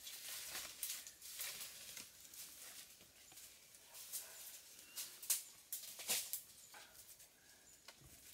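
Faint, irregular rustling and crackling of leaves, vines and twigs as people climb through tree branches, with a few sharper cracks a little after five seconds and again around six seconds.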